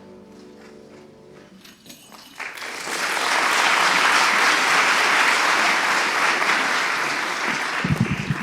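The last sustained chord of a song fades away, then an audience breaks into applause about two and a half seconds in and keeps clapping steadily, with a few low thumps near the end.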